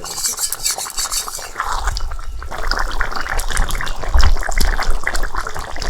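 Prawn and pointed-gourd curry bubbling and boiling in a pan, a dense wet crackle of popping bubbles that grows louder about two seconds in.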